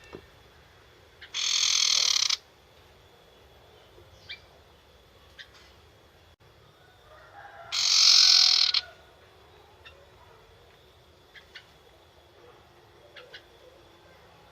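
Young wild-caught sirtu songbird giving its 'nyetater' chatter: two loud, harsh rattling bursts of about a second each, one early and one about halfway through, with faint single chips between.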